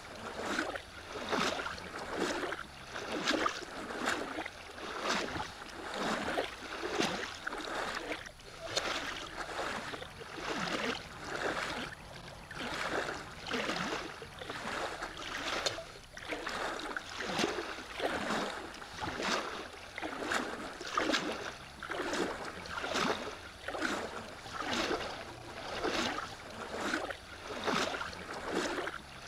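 Kayak paddle strokes in the water, a swishing splash about once a second, over water lapping at the hull.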